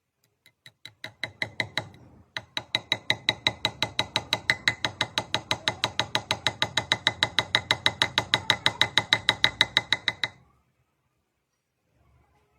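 Rapid, even ratchet clicking, about seven clicks a second: a ratcheting mechanism being worked steadily. It starts faintly, breaks off briefly about two seconds in, comes back louder and stops abruptly near the end.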